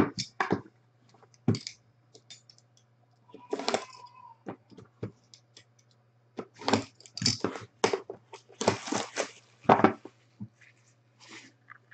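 A Leaf Best of Baseball cardboard card box handled and opened by hand: short scrapes, rustles and taps of the cardboard sliding and being set on the table, coming in quick bursts with gaps between them and busiest in the second half.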